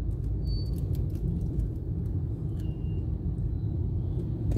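Steady low rumble of a car idling in stopped traffic, heard from inside the cabin, with a few faint ticks.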